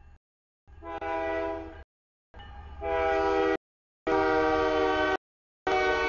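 CSX freight locomotive's multi-chime air horn sounding four blasts of about a second each, the warning for the grade crossing as the train reaches it.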